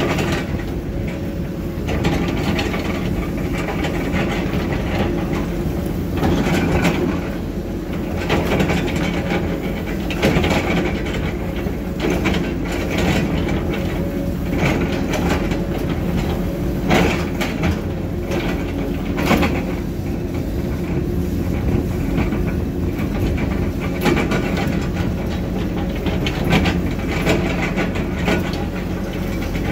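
Heavy construction machinery engine running steadily, with sharp clanks and scrapes of metal every few seconds.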